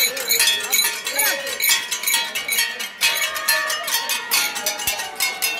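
Crowd of villagers singing and chanting together as they move, over quick, rhythmic metallic clinking.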